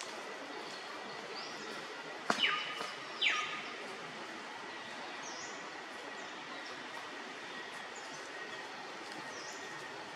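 Outdoor ambience: a steady hiss with short bird chirps scattered through it. A little over two seconds in come two loud falling calls about a second apart.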